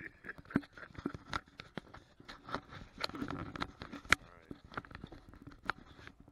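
Loud handling noise of a camera being taken out of its case close to the microphone: a quick string of clicks, knocks and rustles, with the sharpest snap a little past four seconds in.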